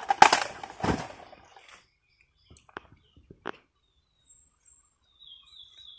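Sharp claps of rifles being slapped and brought up in a present-arms salute, twice in the first second, then quiet with a few faint clicks.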